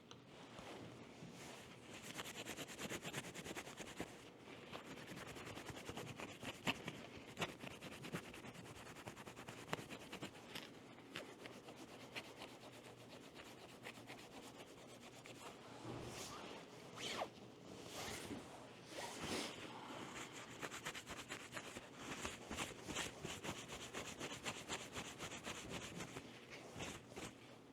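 Surfaces being wiped clean with isopropyl alcohol: faint, uneven rubbing strokes with scattered small clicks and handling taps.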